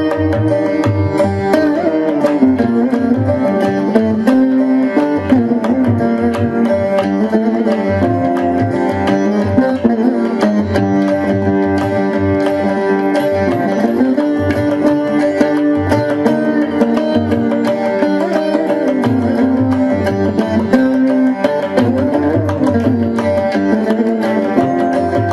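Background Carnatic instrumental music: a plucked veena playing gliding melodic phrases over a drum keeping a steady rhythm.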